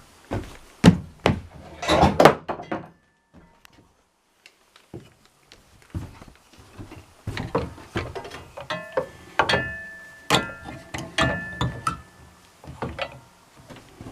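A run of irregular knocks and thunks, as of hard objects being handled and set down, with a near-silent gap about three seconds in.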